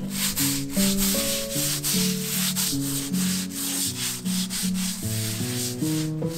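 A stiff-bristled broom scrubbing a wet tiled floor in quick strokes, about three or four a second, over background music.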